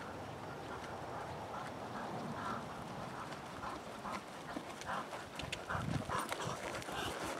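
Hoofbeats of a ridden horse, irregular and growing more distinct toward the end.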